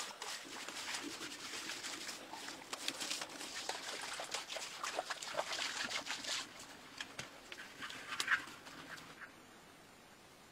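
Wet clay mud squelching and slapping as it is trodden underfoot and smoothed by hand: a dense run of wet clicks and splats that thins out, ending in one louder splat before it dies away to near silence near the end.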